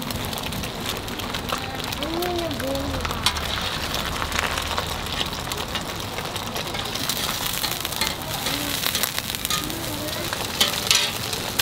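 Beaten egg sizzling on an oiled flat-top steel griddle while a metal slotted spatula scrapes and taps the plate as the omelet is rolled up. Sharp clicks from the spatula come throughout, loudest near the end.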